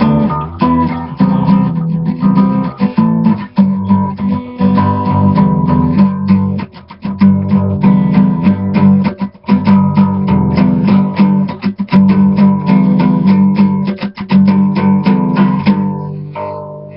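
Guitar strummed loudly and rhythmically, clipping the laptop's built-in microphone so the sound is distorted. The strumming fades out near the end.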